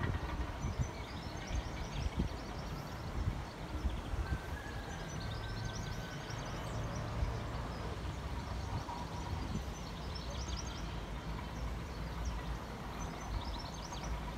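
Steady low rumble of a distant approaching Class 66 diesel locomotive, its two-stroke V12, hauling a container freight train, under gusts of wind on the microphone. Small birds chirp in short repeated trills several times over it.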